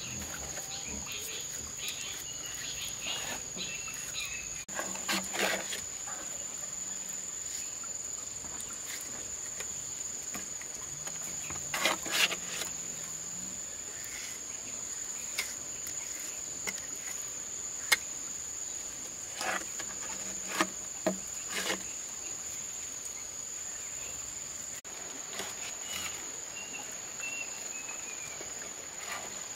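Insects chirring in one steady high-pitched drone, with scattered knocks and clicks now and then; the loudest is a single sharp click about eighteen seconds in.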